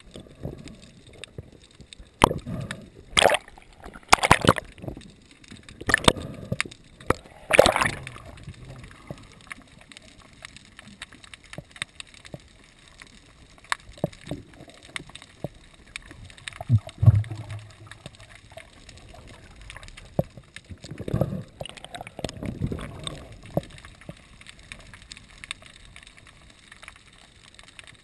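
Water sloshing and gurgling, with a run of sharp splashes or knocks in the first several seconds and a few more later on.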